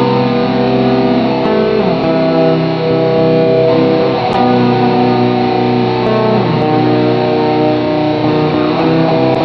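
Guitar music with held, layered chords and a few notes that slide down in pitch.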